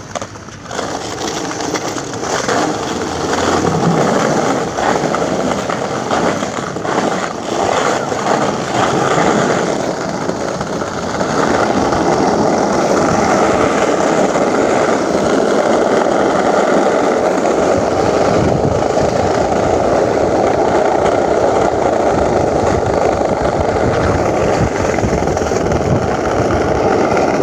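Skateboard wheels rolling down a paved slope: a continuous loud rolling rumble that grows stronger and steadier about a third of the way in as the board picks up speed.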